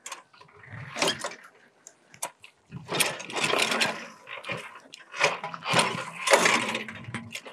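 Irregular metallic clattering and scraping as a walk-behind two-wheel tractor with a plough attachment is handled and shifted, its engine not running.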